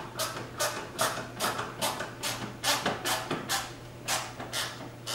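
A ratchet turning a screw into a car's wheel-well skirt, clicking in an even rhythm of about two to three clicks a second as it is worked back and forth.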